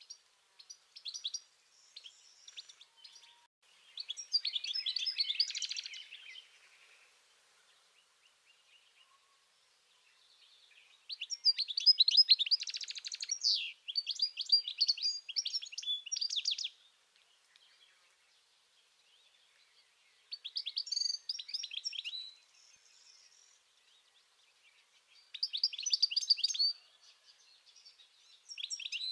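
European goldfinch singing: rapid twittering song in bouts of one to five seconds with short pauses between, the longest bout in the middle of the stretch.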